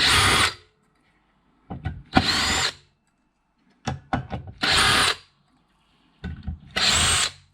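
Cordless drill-driver backing out screws in short runs about every two seconds, each run with a whine that rises in pitch, and clicks of the bit and screws in between.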